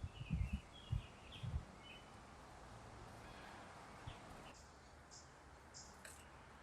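Small songbirds calling. Quick chirps come in the first second and a half, then a run of short, high-pitched notes repeats about every half second from partway through. Several dull low thumps come in the opening second and a half.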